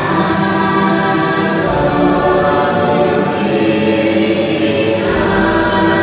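Choral music from the ride's soundtrack: layered voices singing long held notes in a chant-like style, the chord shifting every couple of seconds.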